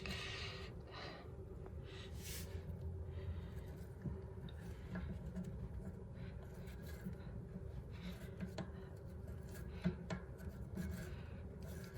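Faint rubbing and scraping with a few light clicks as hands handle and fit the bidet hose's threaded connection and gasket, over a steady low room hum.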